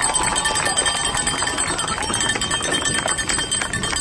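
Crowd in the stands cheering and clapping, with cowbells ringing steadily through it.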